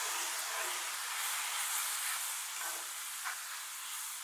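Mushrooms sizzling and hissing in a hot skillet just deglazed with a splash of brandy, a wooden paddle scraping and stirring through them.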